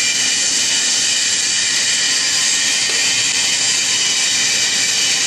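Steady, even hiss of a running continuous oil-curtain snack fryer line.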